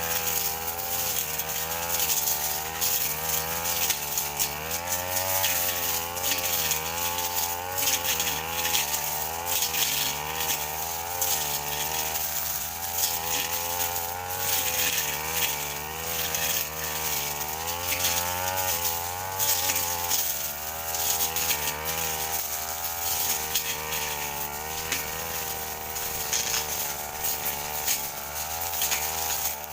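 Brush cutter engine running hard, its speed wavering up and down continually as the blade cuts through mixed brush and cogon grass.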